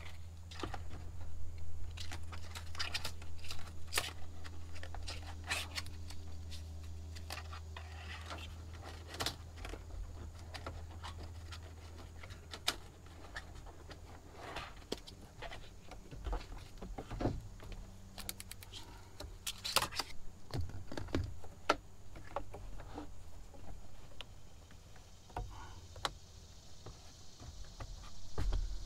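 Irregular clicks, scrapes and rustles of hands fitting a fabric sunshade, with bungee cords being fed through and hooked around a Jeep's roof frame. A low steady hum runs under the first half and fades out.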